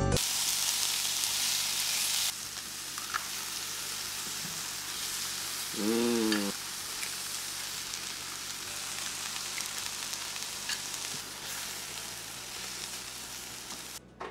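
Eggs, mushrooms and grape tomatoes sizzling as they fry in a frying pan, a stronger hiss for the first two seconds and then a steady sizzle. About six seconds in there is a brief rising-and-falling vocal sound.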